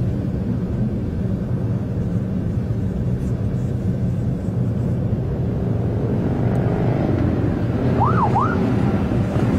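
Steady engine and road noise heard from inside a moving car. About eight seconds in, a police siren gives a short whoop that rises, falls and rises again.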